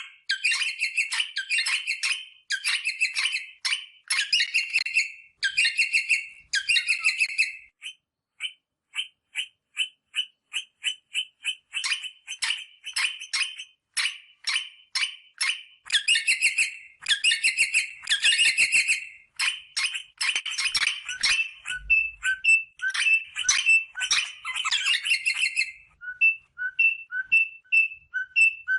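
Rosella parrot calling: bursts of rapid chattering notes, a run of quick single notes, and near the end a repeated two-note piping call alternating high and low.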